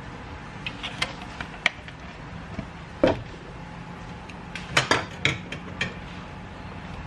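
Kitchen utensils clattering: scattered light clicks, a sharper knock about three seconds in, then a quick run of clinks as a wooden spatula works against a plate and the wok.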